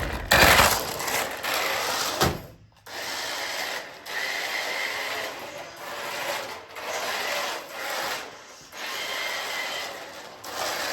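Small electric motor of a 1:14-scale RC drift car whining in on-off bursts of all-or-nothing throttle, with the drift tyres scrubbing across the ground; the loudest burst comes right at the start.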